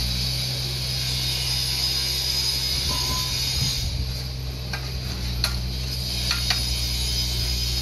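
Steady low hum with a steady high hiss behind it, and a few light clicks as a spirit level is handled and set down on brick piers.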